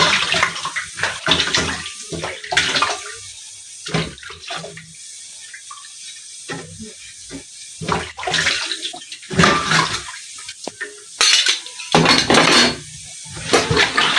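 Dishes being washed by hand: water splashing and pots and utensils clattering in irregular bursts.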